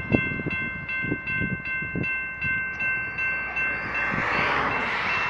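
Railroad crossing's General Signals Type 2 electronic bell dinging rapidly and steadily while the crossing is active. In the first couple of seconds the passing train's wheels knock over the rails a few times and fade out, and a rush of noise swells about four seconds in.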